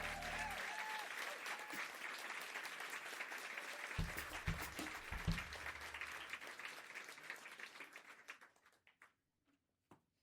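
Audience applauding at the end of a live song recording, the last sung note and guitar dying away just at the start; the applause fades out about eight seconds in, with a few low thumps around the middle.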